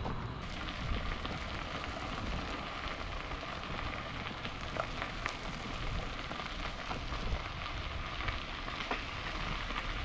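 Bicycle tyres rolling over a crushed-gravel trail: a steady crackling crunch with scattered small clicks.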